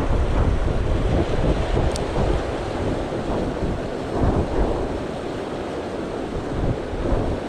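Mountain stream rushing over rocks in a steady wash, with gusts of wind buffeting the microphone. A brief light click about two seconds in.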